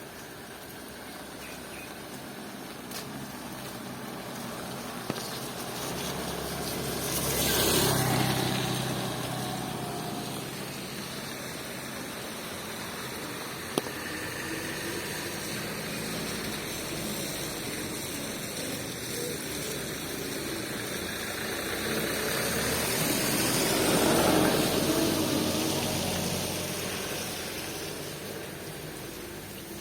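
Steady rain, with two motor vehicles passing one after the other, each engine swelling up and fading away: the first about eight seconds in, the second some sixteen seconds later.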